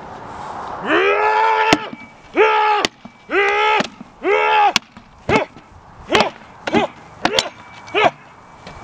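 Dane axe and sword striking a round wooden shield: a run of sharp wooden knocks, about a second apart. Over them comes a series of high-pitched calls that arch up and down. The first few are long, and the later ones are shorter and quicker.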